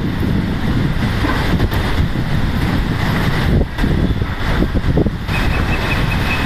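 Fireworks barrage heard from a distance: a continuous rumble of many overlapping bursts and bangs. A steady high tone joins about five seconds in.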